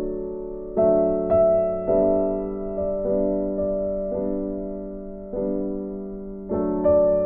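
Soft background piano music: slow chords struck every second or so, each left to fade before the next.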